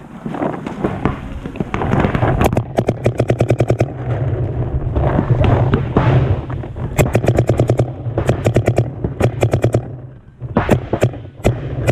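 Planet Eclipse Geo CS1 paintball marker firing in rapid strings of about ten shots a second, several bursts with short pauses between them, over a busier rattle of other shots.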